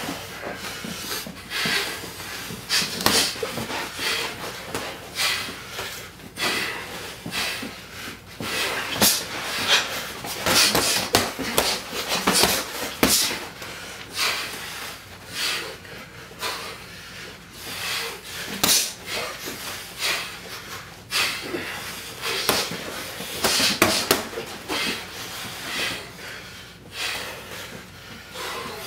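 Heavyweight boxers sparring: irregular short punch impacts of gloves with sharp, hissing breaths, in a small echoing room.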